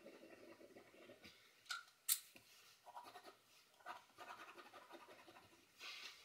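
Ink drawing pen scratching faintly across paper in short strokes, with two sharp taps close together about two seconds in.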